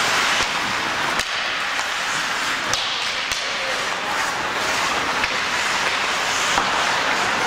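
Ice hockey play on the rink: sharp clacks of sticks, puck and boards, about five over several seconds, over a steady hiss of skates and arena noise.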